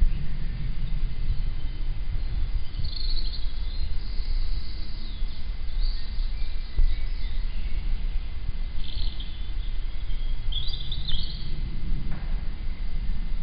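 Small songbirds singing in several short, high phrases scattered through, over a steady low rumble of wind buffeting the microphone.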